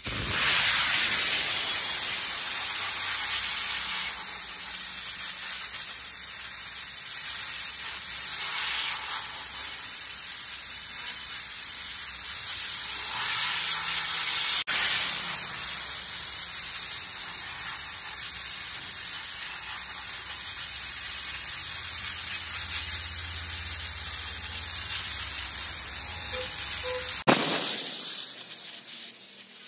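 Steam-wash gun jetting steam at close range onto a car's body panels and badges: a steady, high hiss that drops in level near the end.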